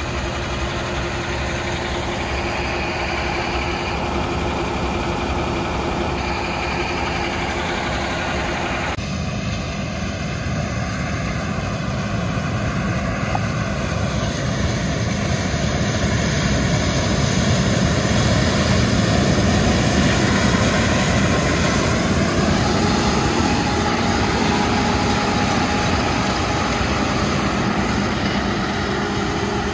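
Farm machinery running steadily: a John Deere tractor's grain cart augering corn into a semi trailer, then, after a change about nine seconds in, a John Deere combine harvesting corn, growing a little louder as it comes closer.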